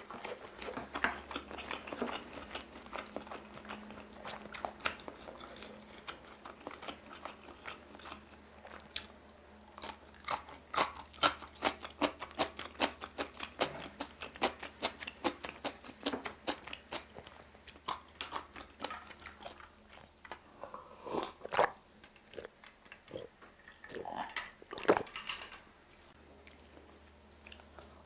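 Close-miked chewing of a mouthful of spicy stir-fried octopus and thick starch noodles: a long run of quick mouth clicks and smacks, thinning out near the end with one louder smack.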